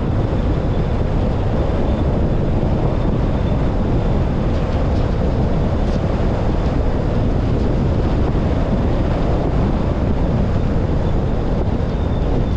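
Wind buffeting the microphone of a roof-mounted GoPro Hero 10 on a moving car: a loud, steady, low rush, with the car's road noise beneath it.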